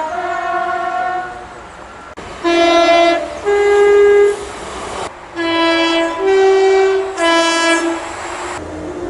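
A British train's two-tone horn sounding. A held note fades in the first second. Then comes a low-high pair of blasts, and after that a low-high-low sequence.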